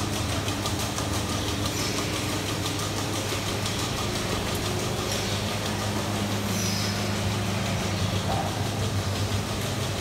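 Dairy-shed milking machinery running during milking: a steady, constant low mechanical hum.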